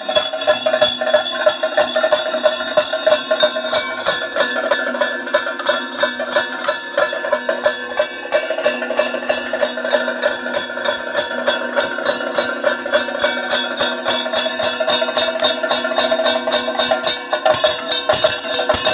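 Kathakali percussion ensemble playing live: fast, steady drum strokes on the chenda and maddalam under the bell-like ringing of brass hand cymbals keeping time.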